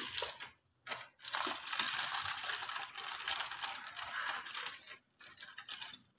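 Aluminium foil crinkling and rustling as it is peeled off a soft roti and lifted away, in a few short bursts at first, then continuous crackling from about one second in until about five seconds in.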